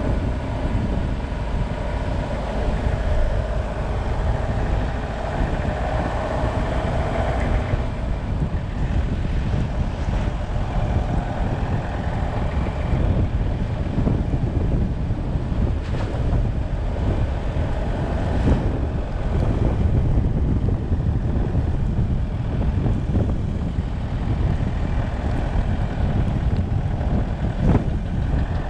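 A motorcycle being ridden at road speed: heavy wind buffeting on the microphone over a steady engine and road rumble. The engine note climbs a little during the first several seconds.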